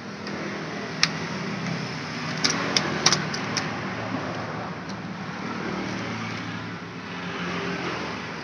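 A few sharp metallic clinks as scooter clutch parts are handled: one about a second in and a quick cluster of four or five a little later. Under them runs a steady hum of engine and traffic noise from the street.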